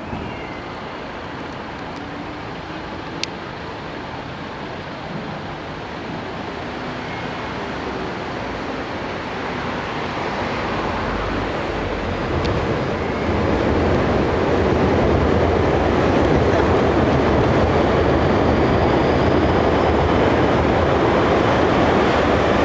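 Train running, its rumble building steadily louder over the first half and then holding at full strength; a single sharp click about three seconds in.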